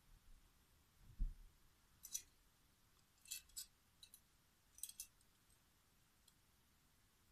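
Faint, light metallic clicks and clinks, about seven of them spread over a few seconds, as a small silver metal object is handled in the hands. A soft low thump comes about a second in.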